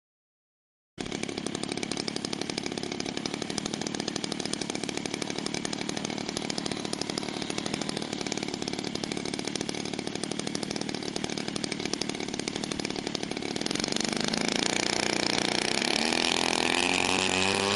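50cc two-stroke petrol engine of a large RC stunt plane, starting about a second in at a steady low speed, then from about three-quarters of the way through the revs rise and it gets louder as the throttle opens for the takeoff run.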